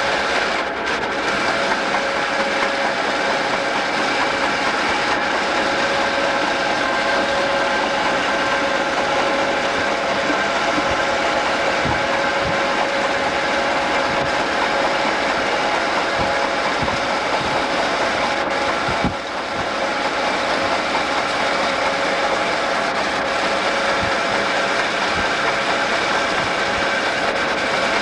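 Southern Pacific EMD GP9 diesel locomotives running at about 25 mph, heard from a vehicle pacing alongside: a steady engine drone over rolling and road noise. Low thumps come now and then, from a flat spot on one locomotive wheel.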